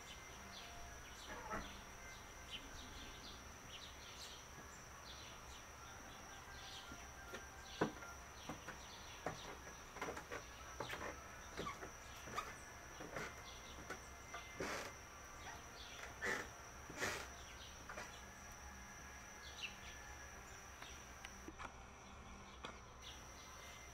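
Faint, scattered short chirps of house sparrows, over a steady high-pitched whine, with a few sharp clicks, the loudest about eight seconds in.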